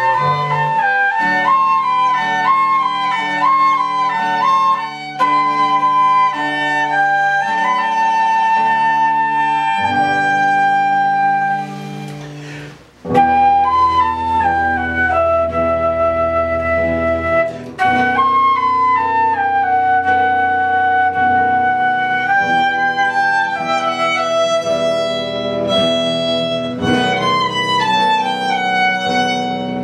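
Live ensemble music: a flute-like wind melody over bowed strings. About twelve seconds in the music drops away briefly, then comes back with a sustained low note under a new melody.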